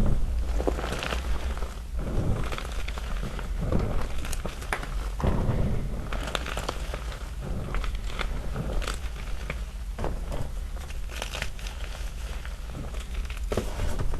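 Small chunks of gym chalk being crushed by hand in loose chalk powder: irregular small snaps and crackles over soft crunching and rustling.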